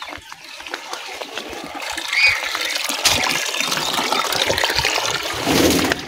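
Papaya leaves rustling and crackling close to the microphone as they are handled, a dense crackle that grows louder in the second half.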